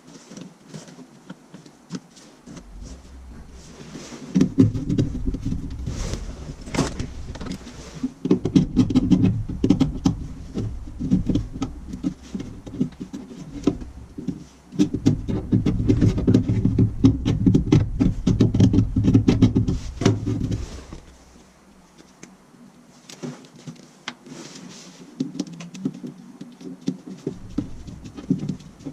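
Hands and tools working on metal furnace parts while a replacement inducer motor and its gasket are fitted: irregular rubbing, clicks and knocks over a heavy low rumble, busiest through the middle and quieter near the end.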